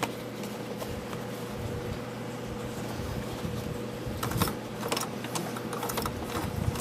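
Vintage Kenmore sewing machine stitching through fabric several times, its needle and hook mechanism clicking over a steady hum. The clicks come thicker in the second half.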